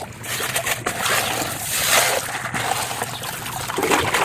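Running water trickling and splashing, as when toy vehicles are rinsed clean.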